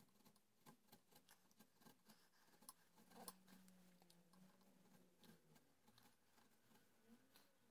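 Very faint small scraping ticks of a hand carving gouge paring the wooden gunstock, scattered and irregular, with a faint low hum in the background for the first few seconds.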